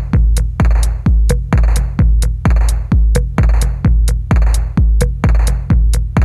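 Electronic background music with a steady drum-machine beat: a heavy bass kick repeating a little under twice a second, with sharp percussion hits between the kicks.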